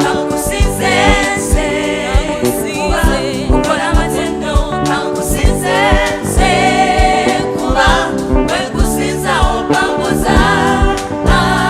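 Gospel song: voices singing over a band with a steady, regular drum beat.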